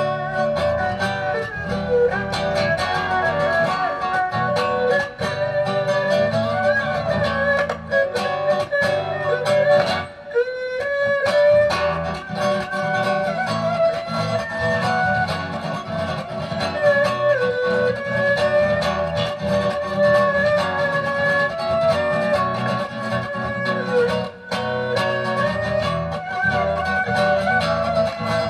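Erhu and classical guitar playing an instrumental duet: the erhu carries a bowed, sliding melody over the guitar's plucked accompaniment, with a brief break about ten seconds in.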